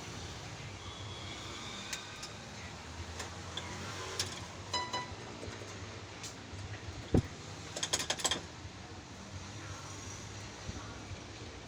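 Scattered light plastic clicks and taps from keyboard keys being pressed and handled, over a steady low background hum. There is one sharper knock about seven seconds in, then a quick run of clicks, and a brief pitched tone a little before the middle.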